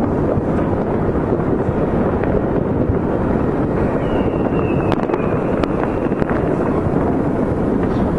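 Steady wind rumble on the microphone, with a few distant firework cracks and the faint, slightly falling whistle of a firework rocket from about four seconds in.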